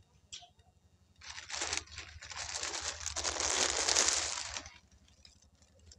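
Crinkling rustle of shiny folded saree fabric being handled: a few short rustles from about a second in, then a longer one that stops shortly before the end.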